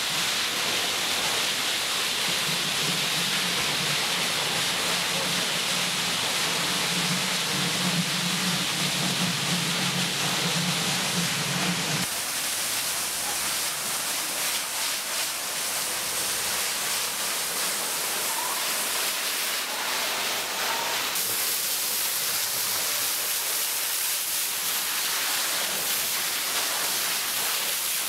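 Jet of water spraying onto a heap of carrots, a steady hiss with a low machine hum under it in the first part. The sound changes abruptly about a third of the way in and again about three-quarters in.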